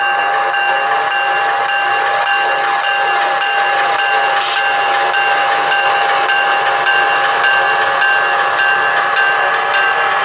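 Sound-equipped model PRR P5a electric locomotives running, their Broadway Limited Paragon 3 sound systems playing electric-locomotive running sounds through the models' small speakers. There is a steady electric whine with faint pulses repeating about twice a second.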